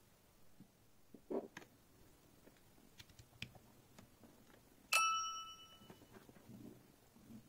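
A few small plastic clicks as a USB-C cable is plugged into an M5StickV K210 AI camera. About five seconds in, a single bright electronic chime plays from its small speaker as it powers up, ringing for about a second.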